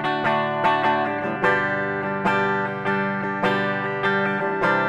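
Schecter C1 Custom electric guitar on its bridge pickup with a clean, undistorted tone, playing picked chords whose notes ring together. The chord changes about a second and a half in, again past two seconds, and near the end.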